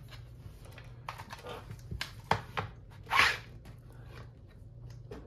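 A few light clicks and taps and a short rustle about three seconds in, from handling a prototype butterfly knife and its packaging.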